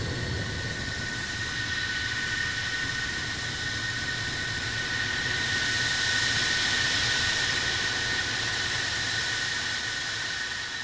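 Mikoyan MiG-31's twin D-30F6 turbofan engines running as the jet taxis: steady jet noise with a high, steady whine, growing a little louder about halfway through.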